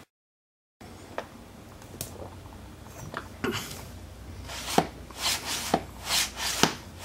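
Wooden parts of a plywood drill jig handled by hand: a few light taps, then from about halfway several short scraping rubs of wood on wood with sharp knocks, as the slide and stop block are moved.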